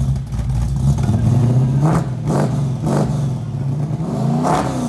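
Car engine revving over a steady low running note, with about four quick rises and falls of the throttle.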